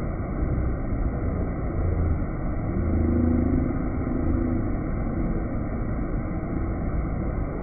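Spring-fed river water rushing over rocks in a small rapid: a steady, dull rush that swells a little now and then.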